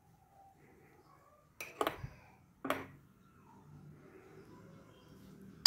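A metal spoon clinking against a ceramic mug of frothy coffee: three light clicks about two seconds in, then a sharper, louder clink near the end.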